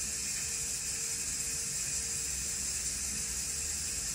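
Steady, even hiss with a faint constant hum under it and no distinct events: room tone.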